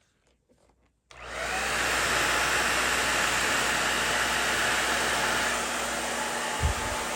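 Pattern Beauty blow dryer switching on about a second in and running with a steady rushing whoosh and a faint whine, settling a little quieter after about five and a half seconds. A few low bumps near the end.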